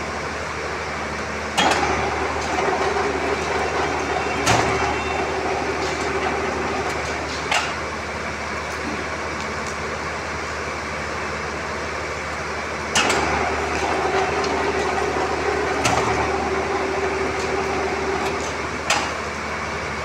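Electric rebar bending machine running with a steady motor hum, going through two bending cycles as it bends a bundle of steel bars. Each cycle starts with a sharp clunk, then a steady whine for about three seconds as the turntable turns, and ends with a knock, followed by another clunk a few seconds later.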